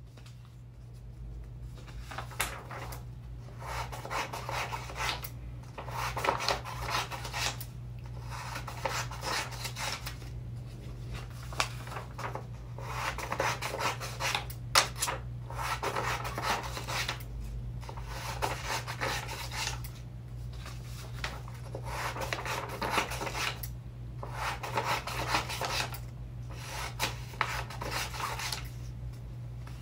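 Scissors cutting through sheets of paper in a string of long cuts, each a second or two long with short pauses between, over a steady low hum. One sharp click about fifteen seconds in.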